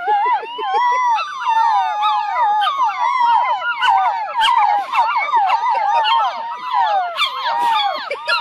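A litter of puppies howling together: many high, wavering howls rising and falling over one another in a continuous chorus.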